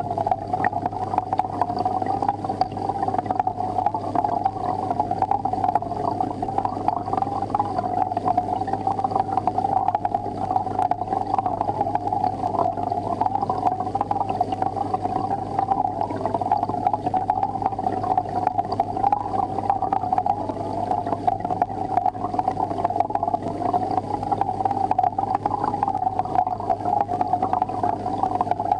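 Aquarium equipment running: a steady low hum under a continuous, fluttering burble of moving water.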